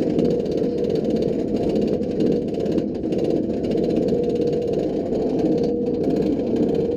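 The train of a B&M inverted roller coaster climbing its chain lift hill: a steady, loud mechanical rattle and drone from the lift.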